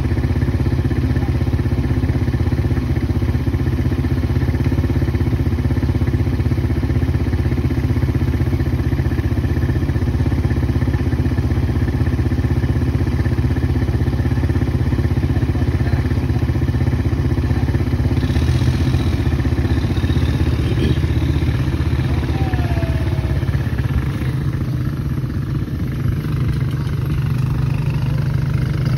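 ATV (quad bike) engine running at a steady speed with an even engine note, dipping slightly in level a few seconds before the end.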